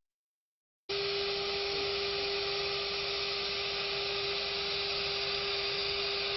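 Silence for about the first second, then a router spindle on a Legacy woodworking mill starts up suddenly and runs at speed with a steady high whine over a hiss.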